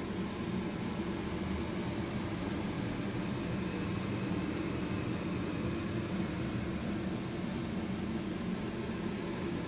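A steady mechanical hum with a low drone running under it, even and unchanging.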